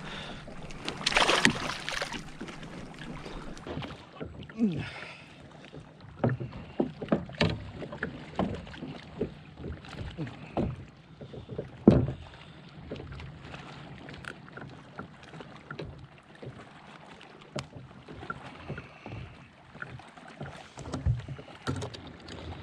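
A bass splashing as it is lifted from the water into a kayak, with a burst of splashing about a second in. This is followed by scattered small knocks and clicks of the fish and tackle being handled against the kayak while the hook is removed.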